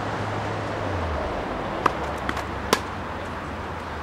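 Tennis ball being hit on an outdoor hard court: three sharp pops within about a second, around two seconds in, the last one the loudest, over a steady background hum.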